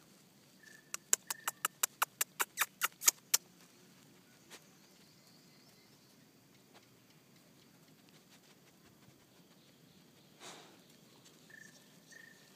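A quick, even run of about a dozen sharp clicks, roughly five a second and growing louder, lasting a little over two seconds about a second in. Then only quiet background, with one soft noise near the end.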